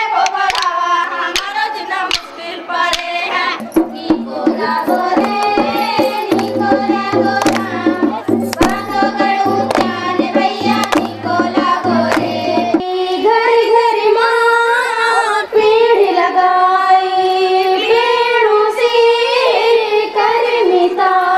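A group of schoolgirls singing a song about protecting the environment and planting trees, with a low rhythmic beat under the middle of it.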